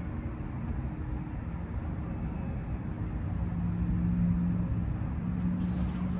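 Steady low rumble of vehicle noise, with a steady low hum joining about three and a half seconds in.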